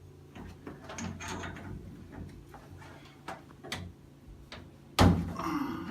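Tongue-and-groove pliers (channel locks) being opened up, the jaw clicking and knocking along its grooves in a run of small metallic clicks, with a louder knock about five seconds in.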